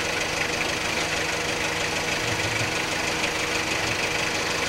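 A vehicle engine idling steadily: an even low hum with a few steady tones under a hiss of background noise.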